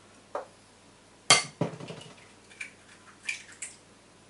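Eggs being cracked into a bowl: one sharp knock about a second and a half in, the loudest sound, with a few lighter taps and clicks of shell and dishes around it.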